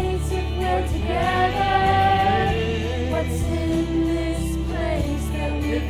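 Mixed ensemble of men's and women's voices singing a musical-theatre chorus in harmony, holding long notes over an instrumental backing.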